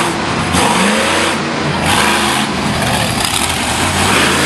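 Monster truck engine revving hard over and over as the truck drives over dirt jumps, its pitch rising and falling with each surge.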